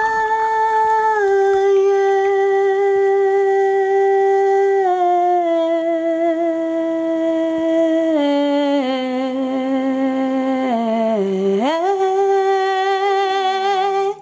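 A voice humming a slow tune in long held notes that step down in pitch one after another, with a quick swoop up near the end before settling on a higher held note.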